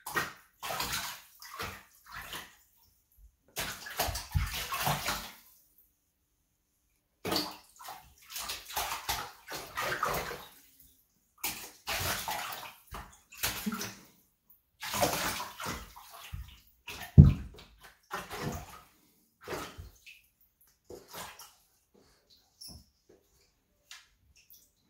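A serval pawing and splashing in shallow bathtub water as it hunts small live fish: irregular bouts of splashing and sloshing with short pauses between them, and one sharp, loud smack about two-thirds of the way through.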